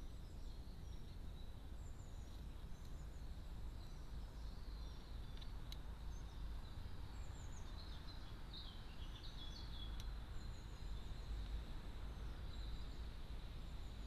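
Faint outdoor ambience: a steady low rumble and hiss, with scattered short chirps and twitters of small birds in the background. There are two sharp clicks, about a third and about two-thirds of the way in.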